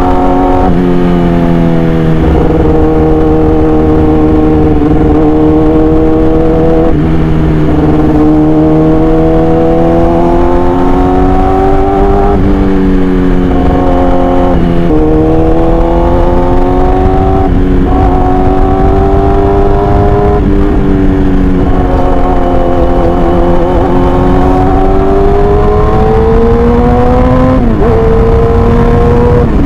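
Yamaha R6 inline-four sportbike with an SC Project exhaust running loud under load. The engine note climbs slowly and then drops sharply every two to three seconds, as at gear changes.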